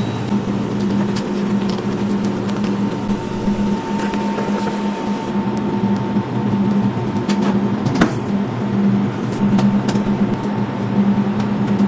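Steady low machine hum with a faint higher tone, broken by scattered light clicks and taps, one sharper click about eight seconds in.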